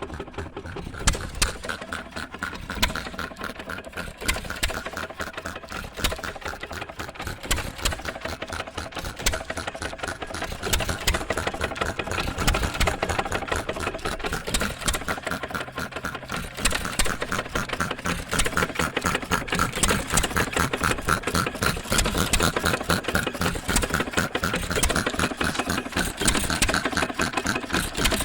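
1916 Associated 2-1/4 hp hit-and-miss engine air compressor unit running: a fast, even mechanical clatter with a few louder knocks early on. It gets busier and louder about ten seconds in.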